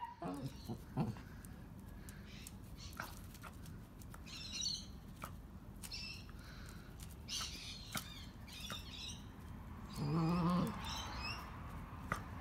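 Dachshund sniffing in short snuffling bursts, with faint scattered clicks, and a short low growl about ten seconds in.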